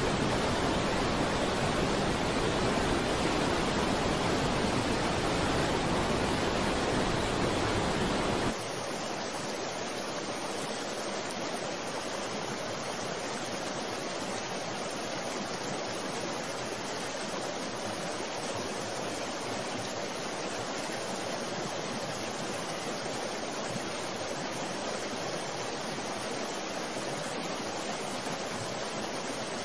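Steady rushing noise with no distinct events. About eight seconds in it drops to a quieter, duller rush.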